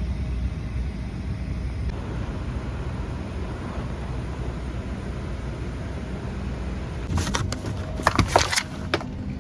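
Steady low rumble of an airliner at the gate or in its cabin. Near the end comes a quick cluster of clacks and knocks, the loudest sounds.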